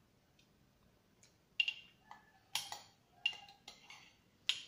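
Metal teaspoon clinking and scraping against a ceramic mug of ice cream: about six sharp clinks, each with a short ring, starting about a second and a half in.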